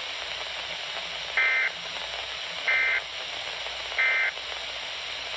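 Weather radio end-of-message EAS/SAME data bursts: three short bursts of buzzing two-tone digital data, evenly spaced a little over a second apart, marking the end of the warning broadcast. A steady radio static hiss runs underneath.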